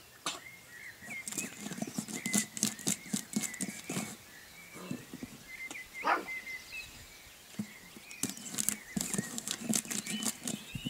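A puppy's claws scratching and tapping on a flat board as it paws and noses at it, in quick clusters of clicks and scrapes.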